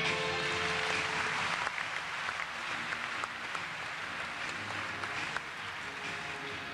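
Audience applauding, loudest at the start and easing off, with the last held note of the accompanying music at the very start.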